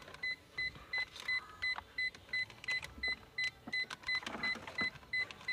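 Perodua Alza's electronic warning chime beeping steadily, about three short high beeps a second, with faint clicks of plastic being handled.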